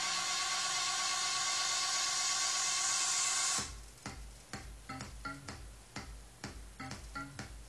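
Electric motor of a motorized ceiling TV mount whirring steadily with a steady whine as it turns the TV, cutting off suddenly about three and a half seconds in. Faint, irregular clicks with short pitched notes follow.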